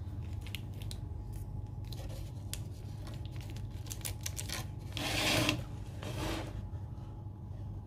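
Small plastic seasoning sachet and the cup noodle's peeled-back foil lid being handled: light clicks and crinkles, then a louder tearing rustle about five seconds in and a shorter one a second later. A steady low hum sits underneath.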